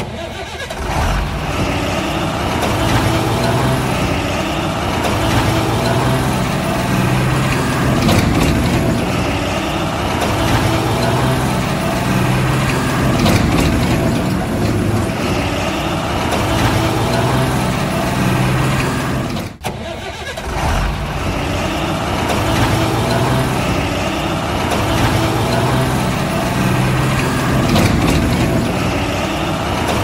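Heavy diesel truck engine running, a recorded engine sound that swells and eases in a repeating cycle every few seconds, with a brief drop-out about two-thirds of the way through.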